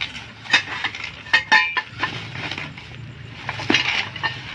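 Metal clinks and knocks from the parts of an aftermarket motorcycle exhaust being handled during unboxing, with a few sharp knocks about a second in and another near the end.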